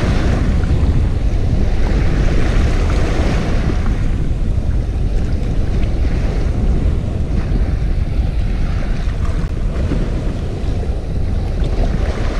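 Wind buffeting the microphone over small waves washing on a stony shore: a steady rushing noise, heaviest in the lows.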